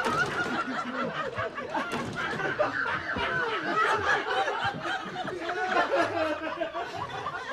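Several people laughing at once, a steady mix of giggles, snickers and chuckles: contagious laughter spreading through a group.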